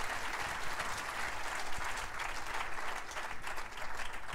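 Audience applauding, a dense even clapping that starts to thin out toward the end.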